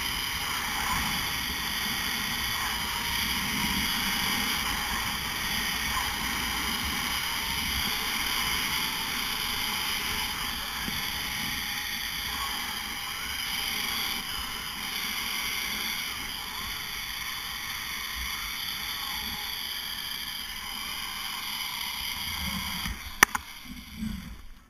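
Zip line trolley pulleys rolling along the steel cable, a steady high whirring hiss with wind rumbling underneath. Near the end comes a single sharp clank as the trolley reaches the landing platform, and the whirring dies away.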